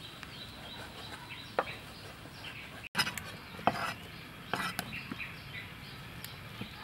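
Cleaver chopping and slicing raw beef on a wooden chopping board, a handful of irregular sharp knocks. Chickens and small birds call in the background.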